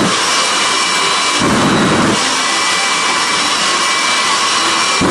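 Jet engine of a jet-powered drag-racing school bus running at a steady high level: a continuous rush with a high, steady turbine whine. A deeper rumble swells about one and a half seconds in and again at the end.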